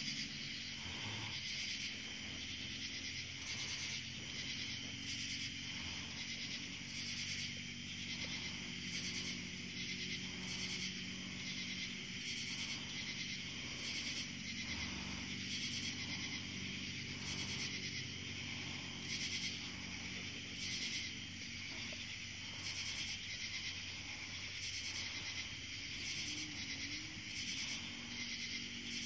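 Night insects, crickets or katydids, chirring steadily in a high band that pulses about once a second, over a faint low hum.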